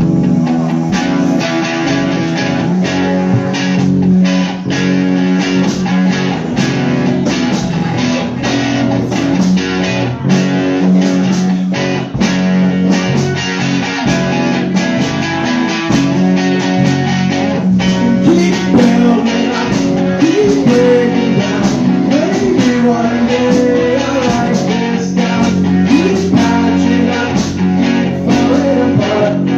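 Live rock band playing an instrumental passage: electric guitar over bass guitar and a steady drum beat, with the guitar line bending in pitch around the middle.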